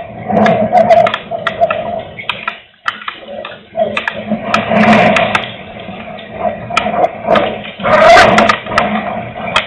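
Strong wind gusting against the microphone, swelling and easing every second or two, with many sharp ticks of raindrops striking close by.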